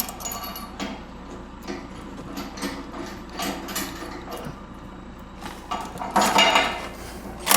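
Scattered metallic clinks and knocks of a wrench and socket working on mounting bolts, with a short louder burst of noise about six seconds in.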